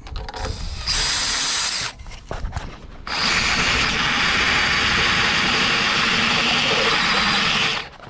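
Cordless drill spinning a worn step bit, reaming a taper into a 1/2-20 nut. There is a short run about a second in, then a longer steady run from about three seconds in until near the end.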